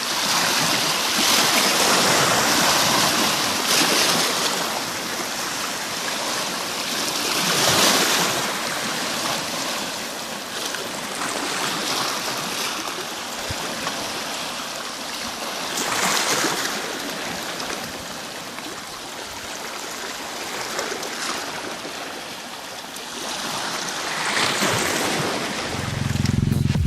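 Sea waves washing onto the shore, the surf swelling and fading again every few seconds.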